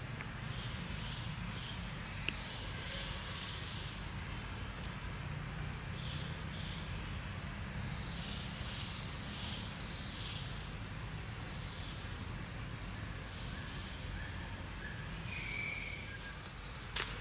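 Insects trilling steadily at a high pitch in the trees, over a faint low rumble, with a single faint click about two seconds in.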